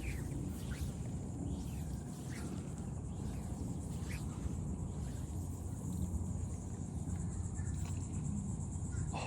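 Outdoor ambience on open water: a low wind rumble, a steady high-pitched buzz, and scattered short chirps.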